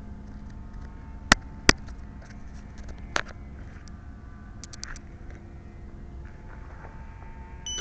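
Faint steady hum with three sharp clicks, two close together early and one a second and a half later, plus a few fainter ticks.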